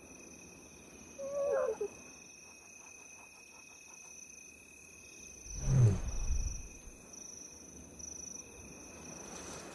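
Lionesses' soft contact calls to their hidden cubs, signalling that it is safe to come out: a short wavering call about a second and a half in, then a lower, louder call around six seconds in.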